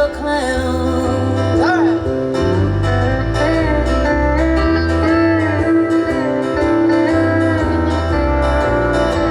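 Country band playing an instrumental break: a steel guitar lead with sliding notes over a steady bass line.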